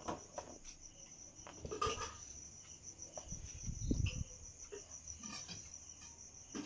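An insect trilling steadily in a high, finely pulsing tone, with soft rustles and light bumps of cotton cloth being folded and handled on a hard floor, the loudest about two and four seconds in.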